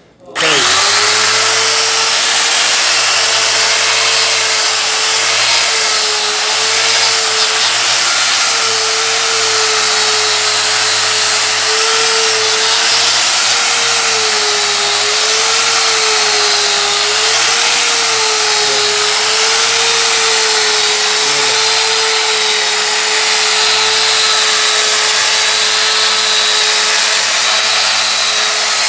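Electric angle grinder with a 200-grit resin diamond dry polishing pad, switched on just at the start and spinning up, then running steadily while dry-polishing a marble floor. Its motor pitch wavers slightly.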